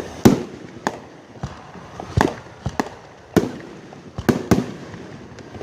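Fireworks going off: about seven sharp bangs at irregular intervals, each trailing a short echo.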